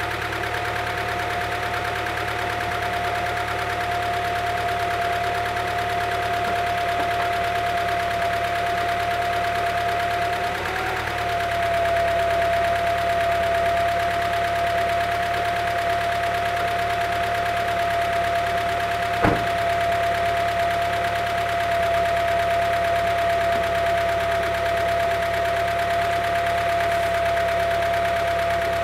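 1998 Honda Prelude BB6's H22A4 four-cylinder engine idling steadily while semi-warm, its valvetrain making noise just after a valve adjustment at 236,000 miles. A steady high whine rides on the idle, with one sharp click about two-thirds of the way in.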